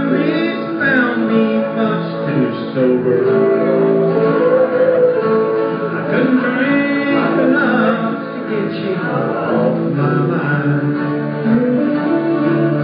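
Live acoustic music: acoustic guitars strummed with voices singing along.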